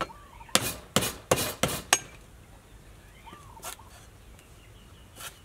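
A cleaver cutting through food onto a wooden chopping board: about five quick chops in the first two seconds, then two lighter cuts later on.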